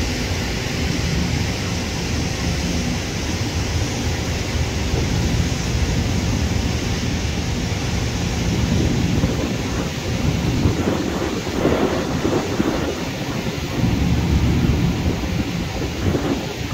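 Jet airliner's engines during the landing roll-out after touchdown: a steady low rumble with a hiss above it. Over the second half, gusts of wind buffet the microphone.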